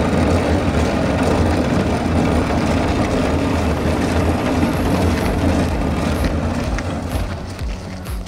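Empty 200-litre steel drum pushed upright across pond ice, its base scraping and rumbling steadily over the ice; the rumble eases off about seven seconds in as the drum comes to a stop.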